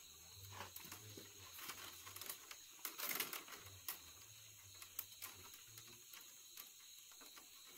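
Faint, irregular clicking and crackling of dry plant material being handled, heaviest about three seconds in.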